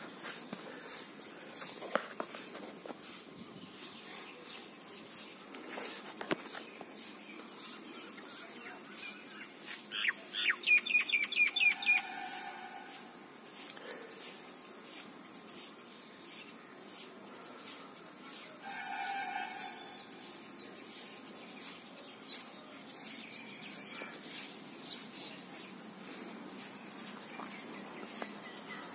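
Insects keep up a steady, shrill pulsing chorus, with a bird calling a quick run of chirps about ten seconds in and a shorter call a little later.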